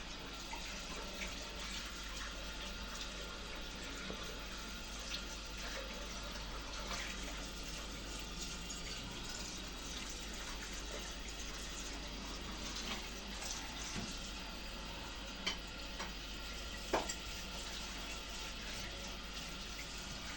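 Tap water running steadily into a kitchen sink. Two short clinks come near the end, the second ringing briefly.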